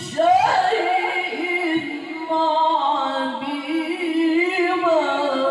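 A man reciting the Qur'an in the melodic tilawah style into a handheld microphone: long held notes that bend through ornamented turns, with a short break a little over two seconds in.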